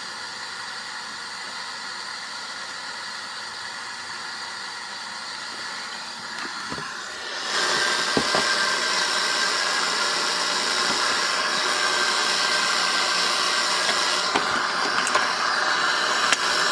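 Steady hiss of static from a DuraBrand radio cassette player's speaker, with no station coming in because the antenna is off. About seven seconds in it steps up louder, with a couple of faint clicks.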